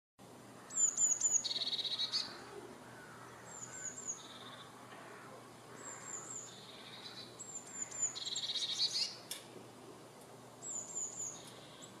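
Blue tit singing its repeated phrase, a few thin high notes followed by a lower trill, five times over, the first and fourth loudest.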